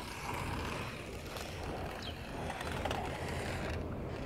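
Small remote-control toy car's electric motor and gears whirring faintly as it drives over concrete.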